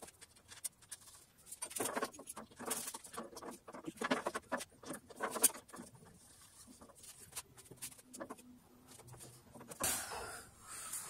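Scattered small metal clicks and taps as bolts and a hand tool are worked to fasten a splitter bracket inside the throat of a cast-iron table saw. There is a short rustling noise near the end.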